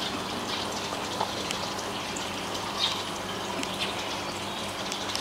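Thin stream of water pouring from a pipe into a small glass aquarium: steady trickling and splashing with small scattered splashes, over a faint steady low hum.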